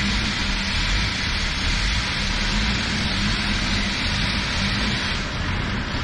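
Range Rover P38's six-cylinder diesel engine cranking steadily on the starter without catching, a cold hard start that nearly fires. The owner puts the trouble down to the injection pump or injectors, with some of the six glow plugs likely not working.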